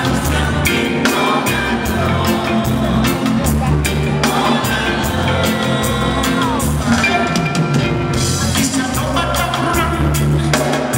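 Live reggae band playing a song: a lead vocalist sings with backing singers over bass guitar and drum kit with a steady beat, picked up from among the audience in a concert hall.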